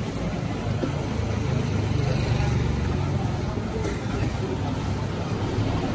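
Steady low rumble of a motor vehicle engine running nearby in street traffic.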